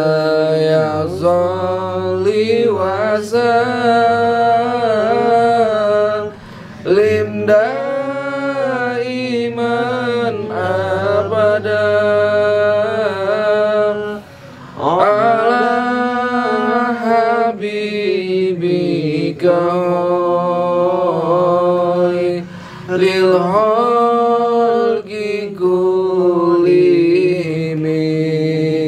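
Sholawat, Islamic devotional chanting in praise of the Prophet, sung in long drawn-out melodic phrases with held, wavering notes over a steady low accompaniment, pausing briefly about 6 and 14 seconds in.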